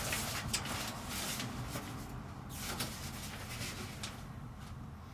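Fabric shower curtain being handled and drawn along its overhead rail: a series of short rustling swishes, busiest in the first second and a half, then fainter.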